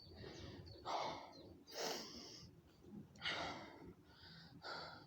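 A man breathing hard in heavy gasping breaths, four loud ones about a second or so apart: out of breath from a set of one-pump burpees.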